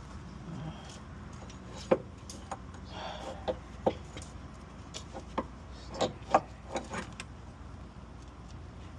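Metal tools and car parts clinking and knocking against each other, about a dozen sharp knocks at irregular spacing, as a power steering pump is worked loose in an engine bay.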